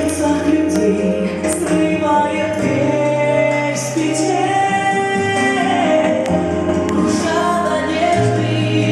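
Recorded pop song with a woman singing over sustained bass notes and backing instruments.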